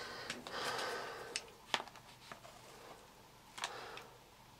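Faint clicks and rustling of plastic parts being handled: a Dyson post-motor filter being worked at to release its clips. There are a handful of separate small clicks.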